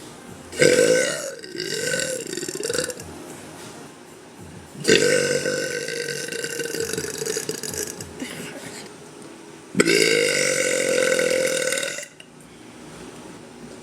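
A young woman's deliberate, loud burps: three long ones in a row, the first wavering up and down in pitch, the second the longest at about four seconds, the third about two seconds.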